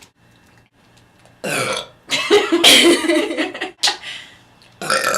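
A young woman belching loudly from the gas of a fizzy cola she has just drunk. There is a short burp about a second and a half in, then a long drawn-out one of well over a second, and another short burp near the end.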